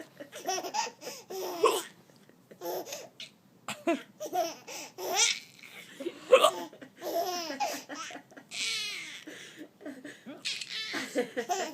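A baby laughing in repeated bursts at a woman's hiccups, with hiccups among the laughs.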